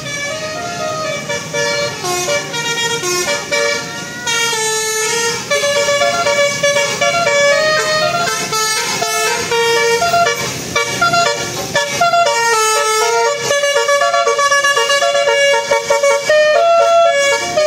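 Bus telolet horn, a set of multi-tone air horns, playing a tune of held notes that step up and down in pitch without a break.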